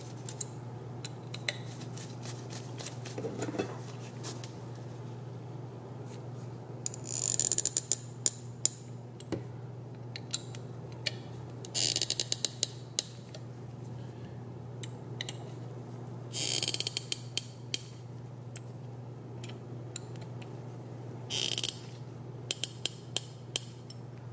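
A hand hex driver running small flat-head screws into a carbon-fibre drone frame: about four short bursts of rapid clicking, with separate sharp clicks between them.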